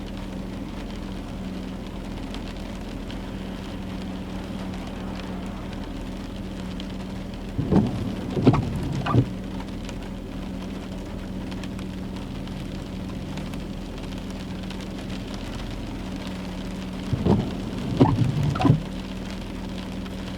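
Steady rain falling, with a constant low hum underneath. Twice, about eight seconds in and again near the end, come a few brief louder noises close together.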